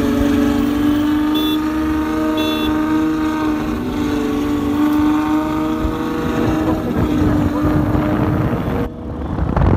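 Ferrari 812 Superfast's V12 engine running at steady, moderate revs as the car rolls through slow traffic. Two short, high beeps from traffic come about a second and a half and two and a half seconds in.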